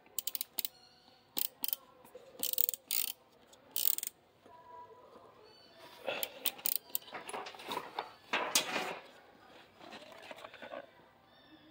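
The swivelling LED work light on a DeWalt lighted tool backpack's handle is turned by hand, giving a quick run of ratchet-like clicks in the first four seconds. A few seconds of rustling and handling noise follow as the bag and its hang tag are handled.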